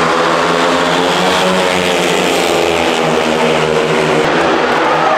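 Speedway bikes' 500cc single-cylinder methanol engines running flat out as they race round the track, a loud steady drone with a slight wavering in pitch.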